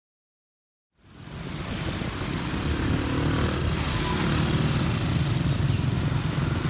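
Jet airliner engine noise, a deep rumble with hiss over it. It fades in about a second in, builds over roughly two seconds, then holds steady.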